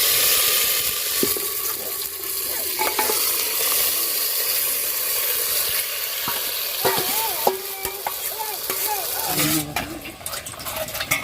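Marinated chicken going into a hot, oiled clay handi pot: loud sizzling as the meat hits the pot, easing slowly to a steadier frying sizzle while it is moved and stirred about.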